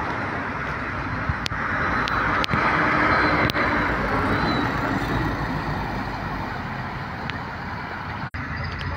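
Steady hiss of heavy rain and car tyres on a wet street, swelling for a couple of seconds as a car drives past close by, with a few sharp ticks. The sound cuts out for an instant near the end.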